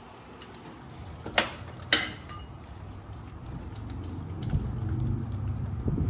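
Two sharp metallic clinks of hand tools against metal, the second ringing briefly, then a low rubbing rumble of handling as the motorcycle starter's mounting bolt is unscrewed.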